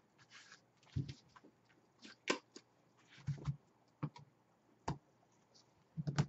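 Tarot cards handled and laid down on a cloth-covered table: a scattering of small clicks and a few soft knocks.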